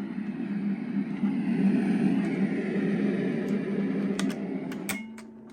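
A steady low buzzing hum from the toy's speaker, running off a DIY wall-outlet battery emulator, broken by a couple of sharp clicks near the end, after which the hum drops away and a few thin chime-like tones begin.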